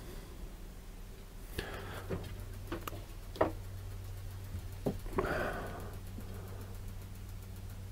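A few light wooden knocks and taps as a mahl stick is picked up and rested against the painting board, the loudest about three and a half seconds in, followed by a short rustling hiss, over a low steady hum.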